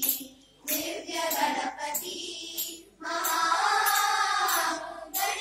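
A group of girls singing a Ganesha bhajan together in two drawn-out phrases, with a short pause between them. Sharp percussion strokes keep a steady beat under the singing.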